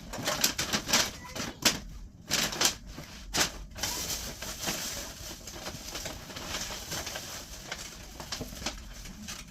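Plastic trash bags being handled and carried out: crinkling rustle with several sharp knocks and clicks over the first few seconds, then a steadier rustling hiss.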